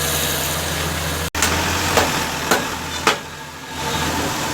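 Mini excavator's diesel engine running steadily. It cuts out abruptly just over a second in, then three sharp knocks come about half a second apart, and the engine hum comes back near the end.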